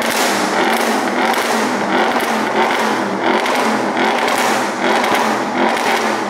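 Audi RS6 C7's 4.0-litre twin-turbo V8 revved repeatedly through an iPE aftermarket exhaust set to dynamic mode, a loud surge about once a second.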